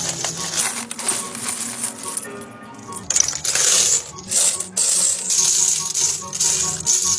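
Metal Bud Light bottle caps clinking and rattling in a heap as hands rummage and stir through them, louder from about three seconds in, over background music.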